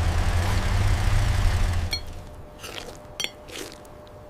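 A loud low rumble with a hiss over it, which drops away suddenly about two seconds in, followed by a few faint clicks and short chime-like tones.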